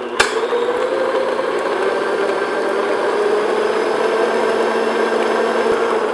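Electric stand mixer running steadily on its motor, its paddle beating cream cheese and butter in a glass bowl until creamy and smooth. There is a sharp click just after the start.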